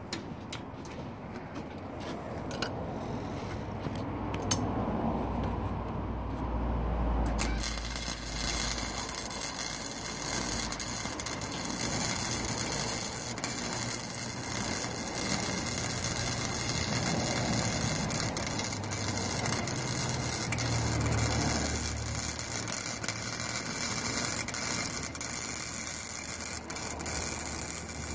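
Chicago Electric 125-amp flux-core wire-feed welder arc-welding rusty scrap steel on its low setting. The arc starts about seven seconds in as a steady crackling hiss, after a few faint clicks.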